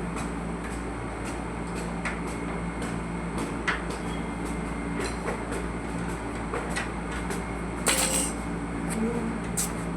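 Steady machine hum with irregular light clicks and knocks, and a brief louder rattle about eight seconds in: the intermittent noise being checked for a repair.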